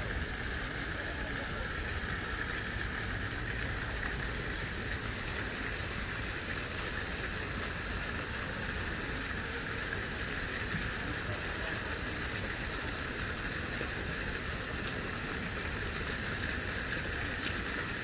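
Steady outdoor ambience: an even hiss with a constant high-pitched drone over a low rumble, unchanging throughout.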